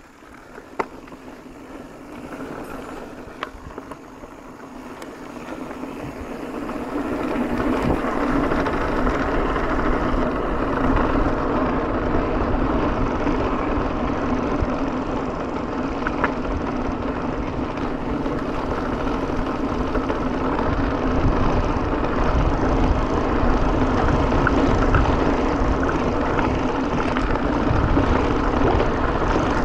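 Mountain bike rolling downhill on a concrete trail: wind rushing over the camera microphone together with tyre noise, building over the first several seconds as speed picks up and then holding steady. A few sharp clicks in the first few seconds.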